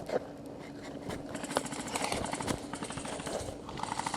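Airsoft guns firing rapid full-auto bursts, a fast even rattle of shots, with a clearer burst near the end.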